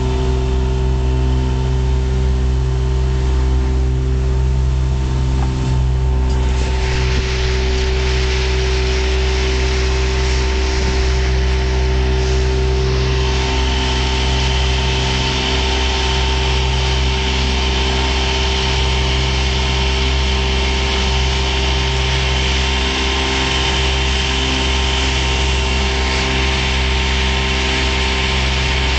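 Chrysler 20 hp two-stroke outboard motor running steadily at speed, pushing a small speed boat. A rushing hiss of water grows louder about six seconds in.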